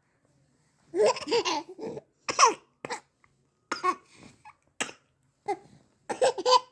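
A young child laughing in bursts, with short, sharp hiccups between the laughs.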